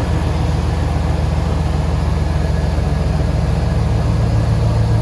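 2003 GMC Sierra's engine running steadily at idle with a fast, even exhaust pulse, run to burp air from the refilled cooling system. The engine has developed a lifter tick.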